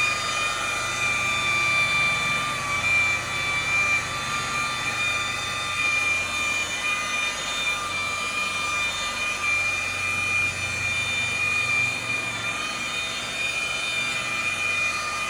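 Car paint buffer running steadily with a high motor whine, spinning a cutting pad with compound over the paint during paint correction.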